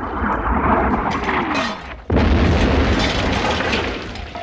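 Incoming artillery shell: a rushing whistle falling in pitch, then a sudden loud explosion about two seconds in that rumbles on and slowly fades.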